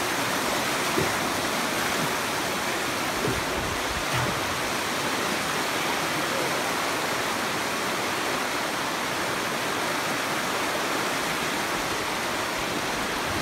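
River rapids rushing over rock ledges: a steady, even roar of whitewater.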